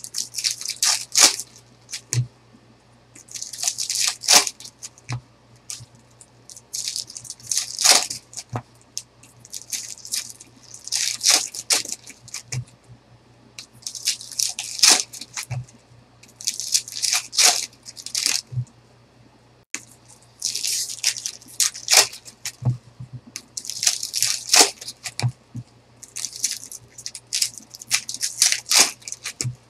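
Foil trading-card pack wrappers and cards being handled, about a dozen short crinkly swishes a few seconds apart as packs are torn open and the cards slid through by hand, with small clicks of card on card between them.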